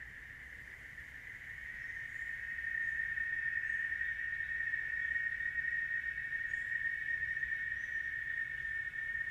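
Steady, unbroken insect drone that swells over the first few seconds and then holds at one pitch, with faint short bird chirps above it.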